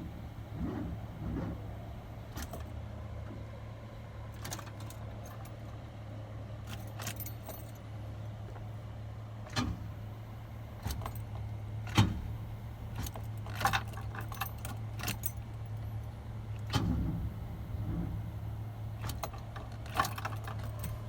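Keys jangling on a key ring with scattered clicks, as the ignition of a 1991 Camaro's 305 TBI V8 is tried; the engine does not crank, the no-crank fault. A steady low hum lies underneath.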